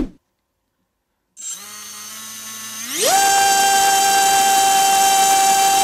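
Xhover 2204 2300KV brushless racing-quad motor on a thrust stand, driving a two-blade DAL 5045 propeller. After a short click, the motor starts at low speed about a second and a half in. It rises sharply in pitch near the three-second mark and then holds a loud, steady high whine at full throttle.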